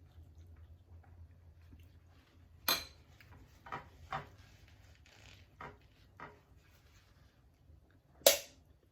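Scattered clinks and taps of a fork against a dish while eating, with a faint scrape in the middle; the loudest clink comes near the end.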